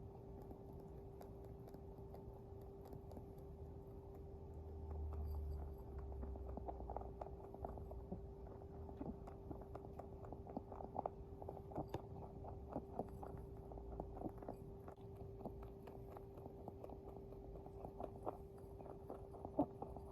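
A pet rabbit crunching dry pellets: rapid little crunches that come thicker from about six seconds in. A steady hum runs underneath, with a dull low thump about five seconds in.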